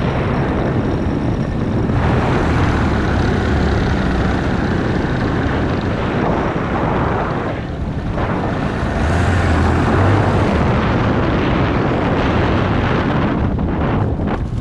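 Paramotor's propeller engine and wind rushing over the microphone during a descent to landing. The noise dips briefly about halfway through, and a few short knocks near the end come as the pilot touches down on foot.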